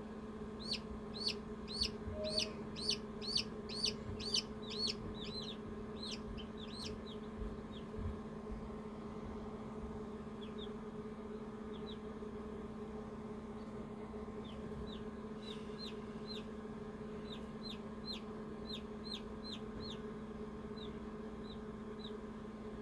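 Chicks peeping in an incubator: a quick run of loud, falling peeps about two a second in the first five seconds, a few scattered peeps in the middle, and another run near the end, all over the incubator's steady hum.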